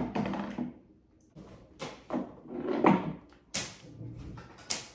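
A few sharp taps and knocks of light cardboard parts being handled and set in place on a homemade Rube Goldberg board, the loudest about three and a half seconds in and near the end.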